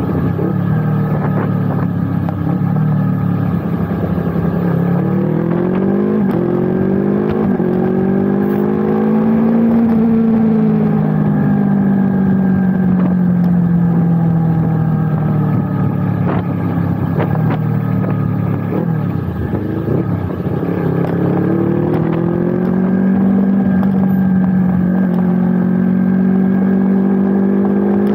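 Yamaha R25's parallel-twin engine running while riding, its note rising as the bike accelerates and sinking slowly as the throttle eases, with two such climbs.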